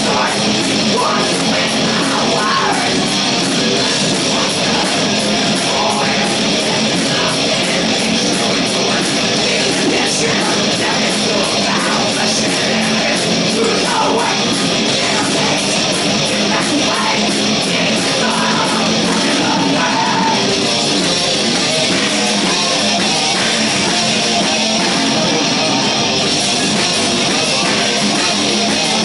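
A heavy metal band playing live and loud: distorted electric guitars over drums, dense and unbroken throughout.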